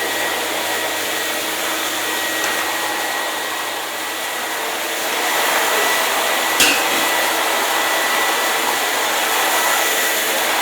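Hair dryer running steadily: an even rush of blown air with a faint steady whine. The air noise grows a little louder about five seconds in, and there is a single sharp click near the middle.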